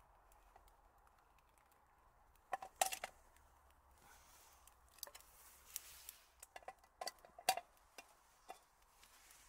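Metal clinks and clicks of a Trangia pan gripper and frying pan being handled while a tortilla is turned. A quick cluster of clinks comes about two and a half seconds in, and a run of sharp clicks follows between about five and seven and a half seconds.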